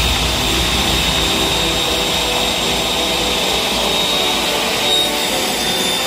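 Table saw running steadily with its blade spinning free between cuts, no wood being cut.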